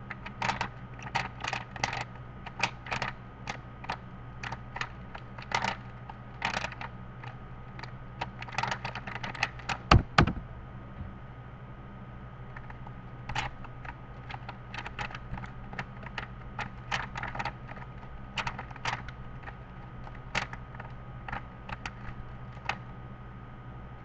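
Plastic 3x3 speedcube clicking as its layers are turned in quick bursts of finger moves, with a cluster of louder knocks about ten seconds in, a short pause, then the turning clicks again.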